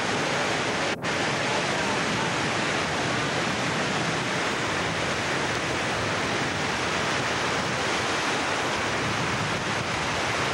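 Ocean surf breaking on a beach, a steady rush of noise with a brief dropout about a second in.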